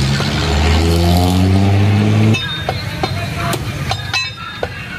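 An engine runs loud and slowly rising in pitch, then cuts off suddenly a little over two seconds in. After it, a cleaver chops on a wooden chopping block in a run of sharp knocks, about two or three a second.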